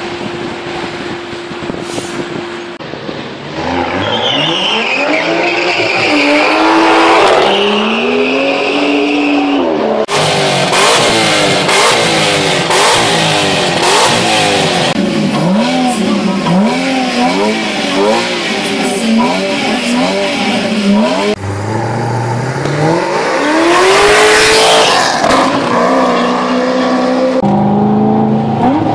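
Supercar engines revving hard, the pitch climbing and falling again and again, with abrupt changes where separate clips are cut together. A high squeal runs for several seconds a few seconds in, and sharp cracks sound over the revving around the middle.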